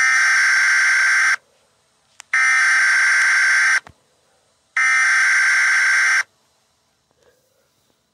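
Emergency Alert System SAME header tones: three bursts of harsh digital data screech, each about a second and a half long with about a second's gap between them, the coded header that opens an emergency alert.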